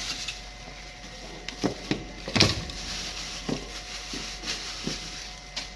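A handful of short, sharp knocks and clatters at uneven intervals over a low steady hiss, the loudest about two and a half seconds in.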